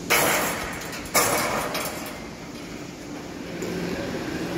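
Two loud bangs of sheet metal about a second apart, each fading out quickly, over a steady low hum.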